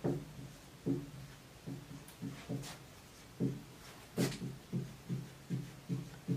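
Marker writing on a whiteboard: a run of short strokes as the symbols go down, with two sharper squeaks about two and a half and four seconds in.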